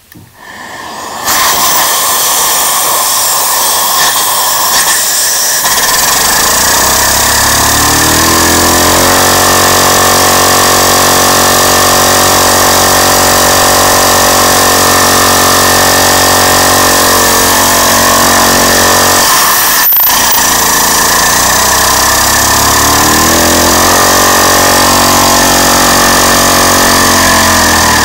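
A LEGO single-cylinder butterfly engine run on air from a vacuum cleaner hose. The vacuum's rush comes on loud about a second in, and the engine's running note climbs slowly as its heavy flywheel spins up, then holds steady. About two-thirds through the air cuts out for a moment and the engine winds back up.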